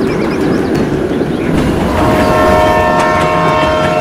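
Passenger train running with a steady rumble. About halfway through its horn sounds, several steady tones together in a chord, and holds.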